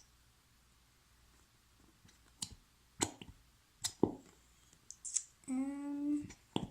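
Scattered clicks and taps of a glue bottle and mixing container being handled while glue is added for slime. Near the end comes a short, steady tone of under a second.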